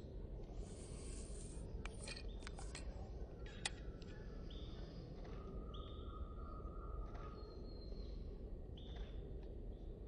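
Faint outdoor ambience with small birds calling: short high notes repeating every second or two, and a steadier lower note in the middle. A few sharp clicks come a couple of seconds in.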